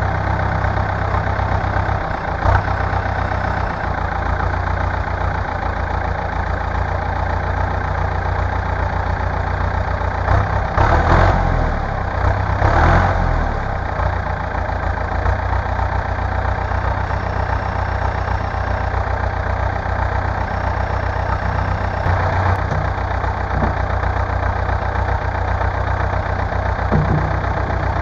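Valmet 903 tractor's diesel engine idling steadily after a successful start on its repaired preheater, with two brief louder surges about eleven and thirteen seconds in.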